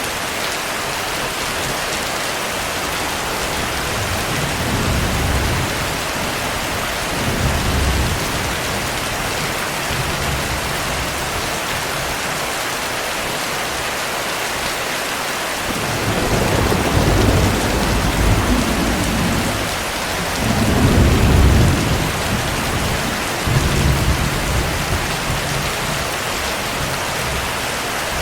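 Steady heavy rain with thunder: two short low rumbles in the first third, then a longer, louder rolling rumble of thunder from a little past halfway until near the end.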